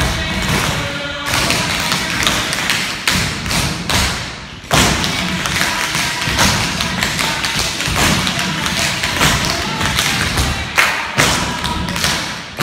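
Tap shoes striking a wooden floor in a dense run of stomps and taps, with music playing underneath. There is a brief lull about four and a half seconds in.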